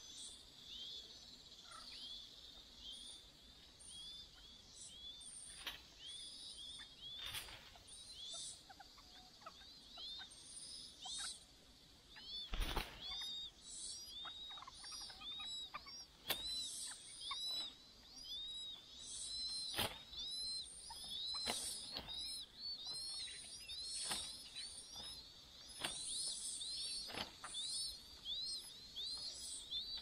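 Chinese hwamei nestlings begging for food: rapid, thin, high chirps, repeated over and over and growing denser toward the end as the parents feed them. Scattered sharp rustles or clicks come from birds moving in the twigs of the nest, the loudest near the middle.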